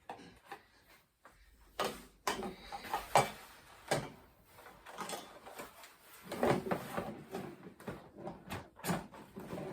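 Irregular knocks, clicks and rustling as the parts of an animatronic Halloween prop are handled and fitted together, with a few sharper knocks scattered through.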